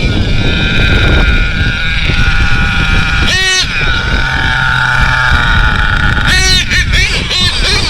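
HPI Savage X4.6 nitro RC monster truck's small two-stroke nitro engine running at high revs with a high whine, rising sharply in pitch about three and a half and six and a half seconds in as the throttle is blipped, over a low rumble of wind on the microphone.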